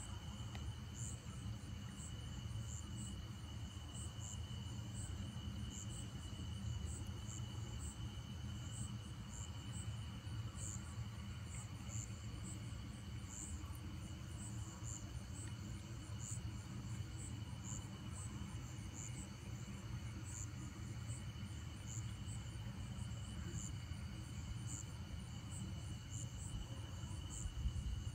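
Night insects calling: a steady high trill, with a cricket chirping about once or twice a second above it, over a low rumble.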